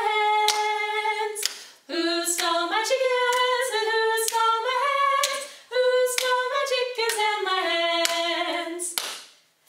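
Two women singing a children's song unaccompanied, with sharp hand claps and hand taps mixed in with the melody. The singing stops about a second before the end.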